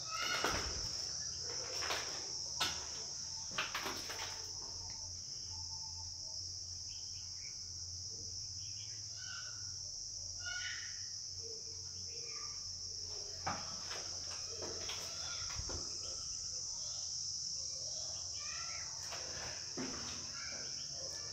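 Steady high trilling of crickets, with scattered short chirps and a few knocks and clicks in the first few seconds.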